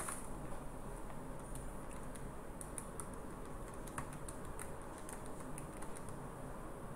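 Keys being pressed one at a time: light, irregular clicks, roughly one every half second, as a calculation is keyed in, over a faint steady hum.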